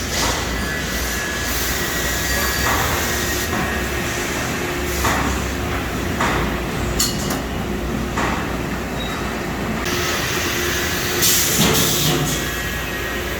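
Sturtz vertical welder running through a cycle: a steady hum with several short bursts of hissing and clunking spread through, loudest near the end.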